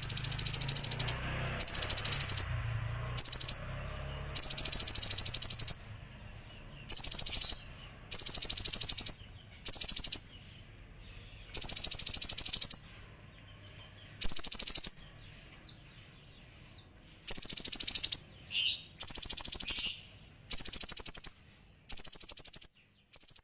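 Common iora (konin) singing in the 'belalang emas' style: repeated high, very fast buzzy trills that mimic a grasshopper, each lasting about half a second to a second and a half, with short pauses between them.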